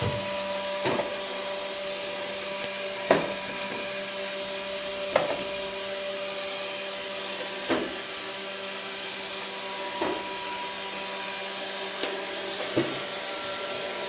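Robot vacuum cleaner running with a steady motor hum and whir, with a sharp knock every two to three seconds.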